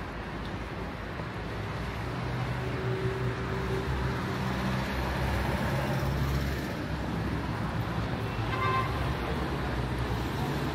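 City street traffic noise with a vehicle engine running steadily nearby, and a brief horn toot about three-quarters of the way through.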